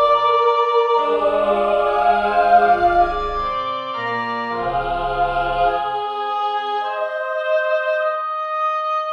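Church organ playing slow, sustained chords that change about once a second, with deep bass notes dropping in and out.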